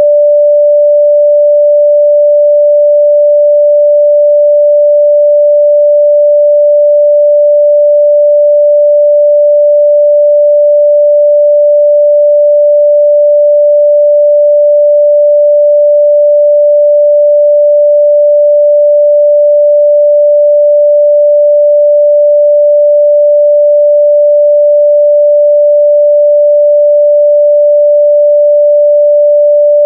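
A steady, loud 588 Hz sine-wave test tone, a single pure pitch held without change.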